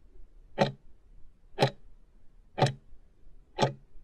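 Ticking-clock sound effect keeping time with a countdown timer: four sharp ticks, one a second, cutting off suddenly as the timer reaches zero.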